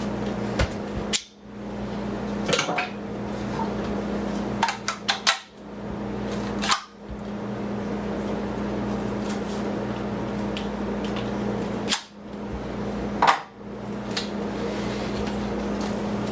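Toppin cordless stick vacuum running with a steady whirring hum. It cuts out briefly several times, and sharp plastic clicks and clacks come from handling the attachments.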